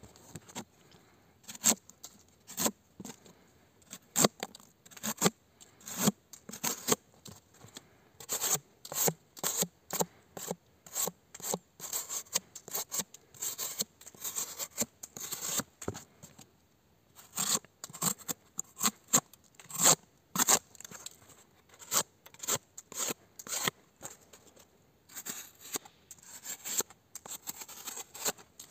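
Tonife Nova fixed-blade knife, an 8Cr14MoV drop-point blade, slicing thin strips off the edge of a sheet of corrugated cardboard: short cutting strokes, about one or two a second, with two brief pauses.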